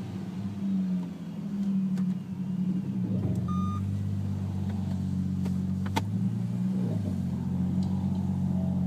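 Ford Falcon BA XR6 Turbo's turbocharged inline-six idling roughly: the idle speed sags about three seconds in and picks back up around seven seconds. A short electronic beep sounds about three and a half seconds in, and there are a couple of sharp clicks.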